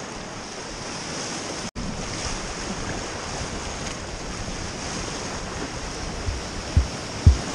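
Rushing whitewater of a river rapid around an inflatable kayak, with wind on the microphone. The sound cuts out briefly about two seconds in, and a few low thuds come near the end.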